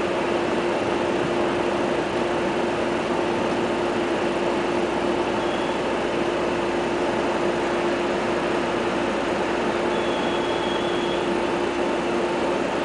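Seibu 20000 series electric train running at a steady speed, heard from the driver's cab: an even rumble of wheels on the track with a constant hum underneath.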